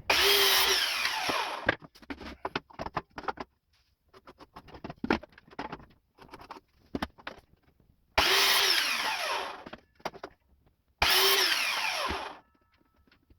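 Electric mitre saw making three short cuts through wood, each lasting about a second and a half, with the motor's pitch falling inside each burst. Between the cuts, knocks and clatter as the boards are handled.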